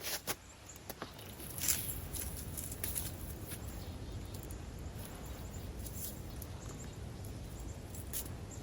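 Faint rustling of evergreen sprigs being handled on a wreath frame, with a few light scattered clicks.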